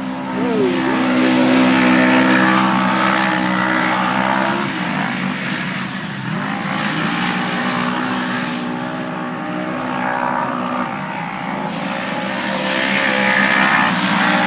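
Off-road race vehicle engines running hard at speed, their drone swelling and fading as vehicles go by.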